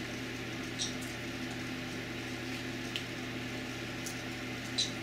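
Steady low electrical hum of room background, with a few faint, short clicks as wire leads with alligator clips are handled.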